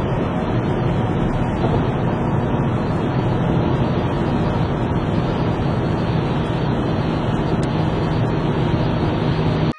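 Steady road noise inside a Škoda Octavia at motorway speed: tyres running on a rain-soaked road, with the engine's low drone underneath.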